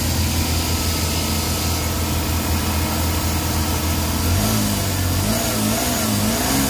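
Suzuki DA17's 660 cc three-cylinder engine running at idle with a steady low hum; about four seconds in a wavering whine joins in, rising and falling about once a second. The engine is idling unsteadily with a fault that sets no trouble code.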